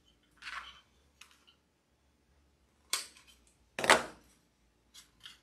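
Metal hand tools, pliers and scissors, handled on a craft table: a short rustle, then a few sharp clicks and clacks, with two loud strikes about three and four seconds in.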